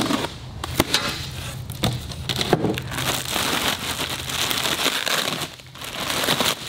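A knife slits the packing tape and the styrofoam cooler lid comes off, giving a few sharp clicks and scrapes. From about two seconds in, the foil insulated liner inside the cooler crinkles steadily as hands pull it open.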